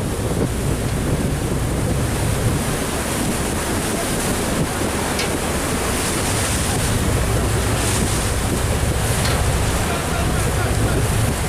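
A boat running at speed on open sea: steady wind buffeting the microphone and the rush of water, with a low rumble underneath.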